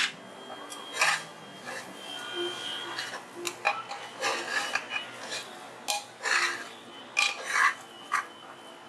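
Metal spoon stirring minced mutton in an aluminium pressure cooker, scraping along the bottom and knocking against the pot's sides in irregular strokes, loudest in a few scrapes in the second half.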